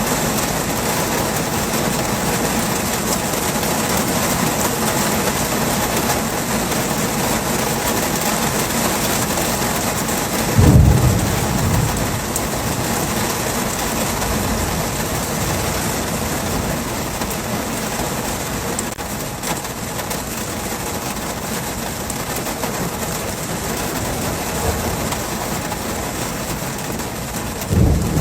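Heavy rain falling steadily, with a short low thunder rumble about a third of the way in and another at the very end.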